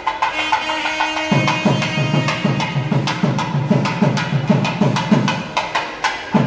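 South Indian temple procession music: a sustained reed-like melody, with drumming coming in about a second in, rapid deep strokes about four a second mixed with sharp stick cracks.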